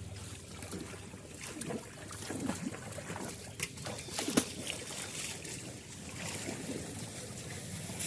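Water sloshing and trickling, with scattered sharper splashes.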